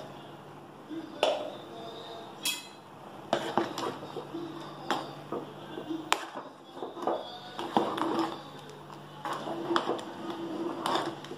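A metal ladle stirring thick gravy in an aluminium pot, knocking and scraping against the pot's sides in irregular clinks. A low steady hum runs underneath.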